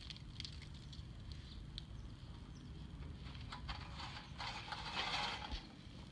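A few light knocks and rattles as a foil-covered cardboard box oven is opened and a metal muffin tin is handled inside it, then a louder scraping, crinkling stretch about four and a half seconds in as the tin slides out over the foil-lined tray.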